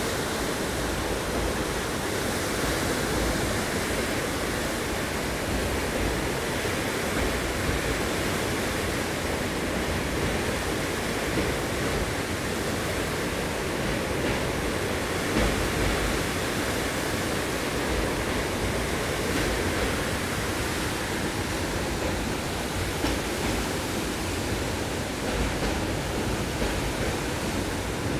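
Steady rushing noise from the open window of a train running across a bridge over a flooded river: air streaming past and the train's running noise blend with the torrent below.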